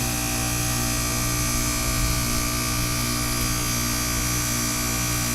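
Goodman heat pump outdoor unit running a defrost cycle on its ice-encased coil: a steady hum made of several held tones over an even hiss.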